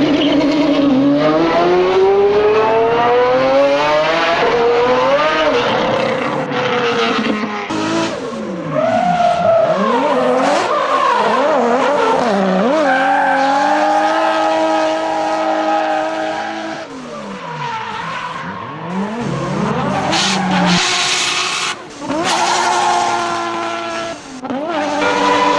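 Dubbed-in car sound effects: engines revving, pitch climbing steadily, then swinging up and down and holding, with tyre squeal and skidding in the later part.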